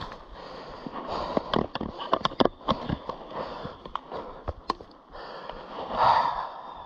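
Mountain bike rattling and clattering over a rough trail: a quick run of sharp knocks and clicks from the frame and handlebar-mounted gear, with a louder rushing burst about six seconds in.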